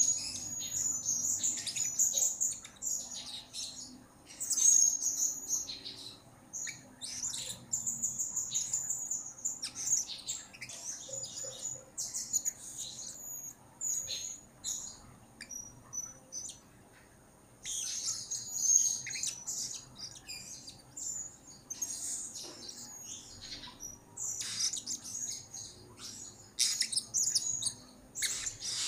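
Blue-crowned hanging parrot (serindit) chirping in rapid runs of thin, high-pitched calls, with a brief pause a little past halfway.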